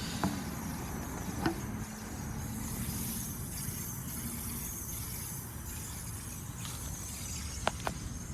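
2006 Trane XL19i heat pump running in heat mode: a steady low hum and fan rumble, with a steady tone that stops about halfway through and a couple of light clicks.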